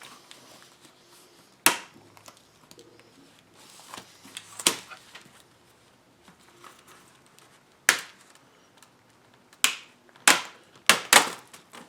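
Sharp plastic snaps as a computer keyboard's clip-in parts pop loose while it is pried off with a knife: about seven single clicks at uneven intervals, coming faster near the end.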